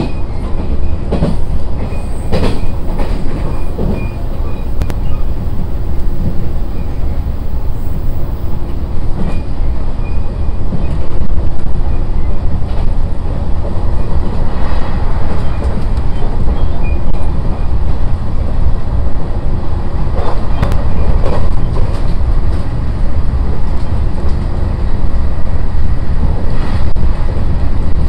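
Running noise inside an SAT721-series electric multiple unit: a steady, loud low rumble of wheels on rail with a faint steady hum, broken now and then by sharp clicks from the track.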